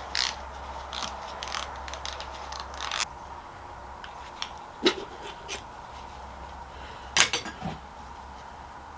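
Hand tools and metal engine parts clicking and clanking in scattered strikes, with a few louder knocks about five and seven seconds in, over a low steady hum.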